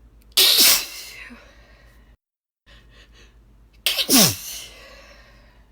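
A woman sneezing twice in a 'KZSCHh'oo!' style, once about half a second in and again about four seconds in. Each sneeze is a sudden hissing burst trailing into a voiced 'oo' that falls in pitch.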